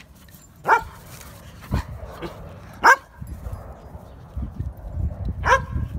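A dog barking: three short single barks, roughly two to two and a half seconds apart.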